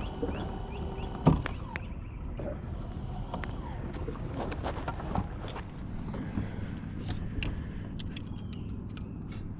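Steady low rumble of wind and water around a fishing kayak, with a sharp knock about a second in and scattered clicks of gear being handled later on. A run of short rising chirps fades out in the first second.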